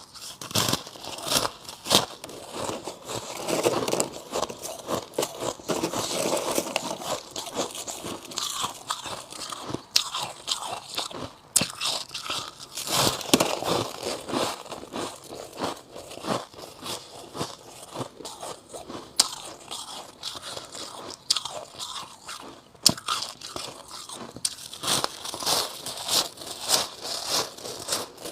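A person biting and chewing chunks of white frost ice close to the microphone: a long run of sharp, irregular crunches with crackling as the frost breaks up between the teeth.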